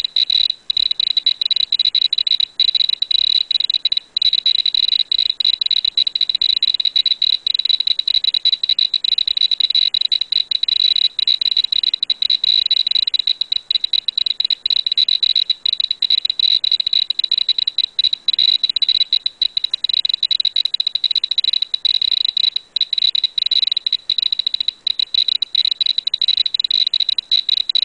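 Terra-P dosimeter's beeper chirping very rapidly at a high, steady pitch, so fast that the chirps nearly run together. It is counting radiation from a thorium- and uranium-bearing ekanite gemstone held against its exposed Geiger–Müller tube, at a dose rate of about 11 microsieverts per hour.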